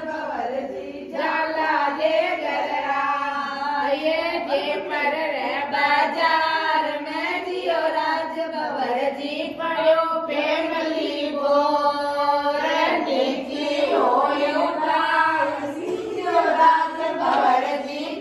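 A group of women singing a song together, voices only, with long held notes that bend up and down.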